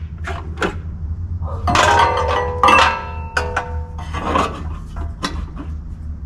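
Metal meat-grinder sausage-stuffing attachments clinking and rattling as they are put away in a drawer, with a series of knocks and a rubbing slide; the ringing clinks come mostly in the first half.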